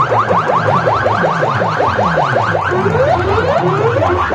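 An electronic siren-like effect of quick rising chirps, about seven a second, blasted through a DJ rig's banks of horn loudspeakers, with low bass tones underneath and a couple of slower swoops about three seconds in.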